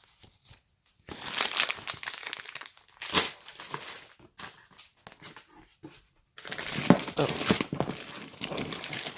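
Snack packaging crinkling and rustling as packets are handled, in two spells: from about a second in, and again from about six seconds in, the second the louder.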